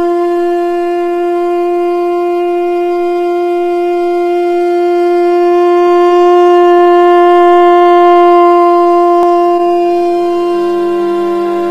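One long, steady blown note from a horn-like wind instrument, held unbroken at a single pitch and swelling slightly in the middle. A lower accompanying tone enters near the end.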